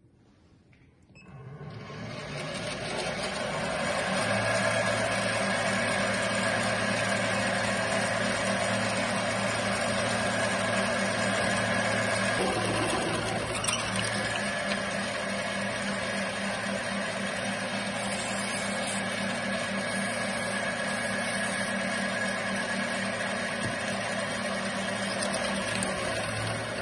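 Metal lathe spinning up about a second in, then running steadily with a gear hum and whine while a twist drill in the tailstock bores into a metal block held in the four-jaw chuck.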